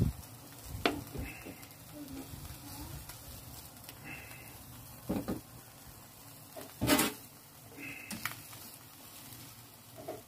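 Chicken thighs sizzling faintly on an electric grill, with a few knocks and clatters of a basting brush and metal tongs against the wire rack. The loudest knock comes about seven seconds in.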